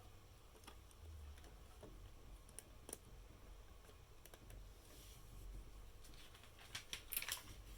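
Faint, scattered clicks of plastic LEGO Technic pieces being handled and pushed together, with a sharper click about three seconds in and a quick run of clicks near the end.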